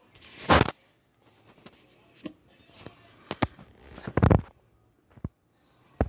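Strong wind gusts buffeting the phone's microphone in short crackling bursts: about half a second in, twice around three to four seconds, and once more briefly near the end.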